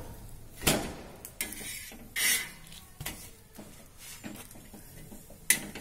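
Slotted metal spatula scraping and knocking on a tawa griddle while turning and pressing a stuffed egg paratha, about six separate scrapes a second or so apart, the loudest about two seconds in.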